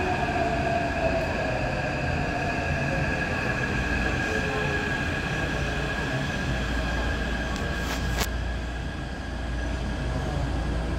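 Taipei Metro train moving along the platform, its motors whining steadily with lower tones falling in pitch at the start. There is a brief burst of hiss about eight seconds in, and a low rumble grows in the second half.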